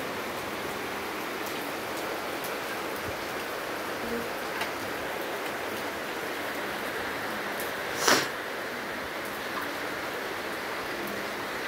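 Steady, even background hiss, with one brief sharp noise about eight seconds in.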